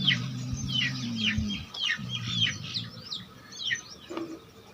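A dog snoring: a low, drawn-out drone through the first second and a half, and again briefly around two seconds in. Many quick, high chirps of small birds run throughout.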